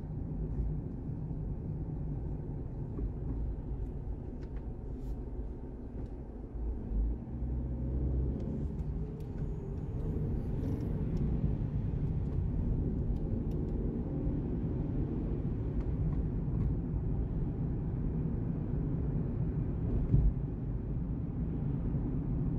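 Road and engine noise of a car driving at highway speed, heard from inside the cabin: a steady low rumble, with a single short bump near the end.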